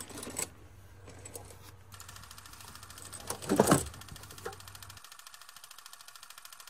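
A fabric curtain being drawn along its rail across a van's side window: a short sliding, rustling burst about three and a half seconds in, over a fast, even ticking.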